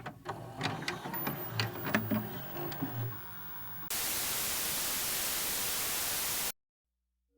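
A clutter of sharp clicks and low knocks, then about four seconds in a loud burst of steady white-noise static that cuts off suddenly after two and a half seconds.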